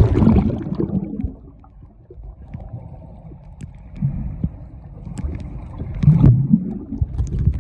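Muffled underwater sound of a swimming pool, picked up by a phone held below the surface: dull low gurgling and bubbling. Louder bursts of exhaled bubbles come about four and six seconds in.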